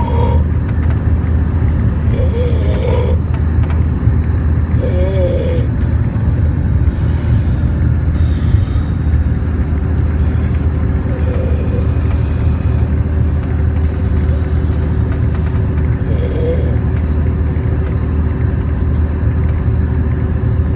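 Steady low rumble of a bus engine, with a man's snores breaking through every few seconds.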